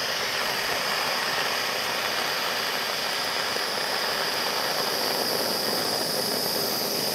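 Bernzomatic propane hand torch burning with a steady, even hiss as it heats a pile of electrolytic capacitors.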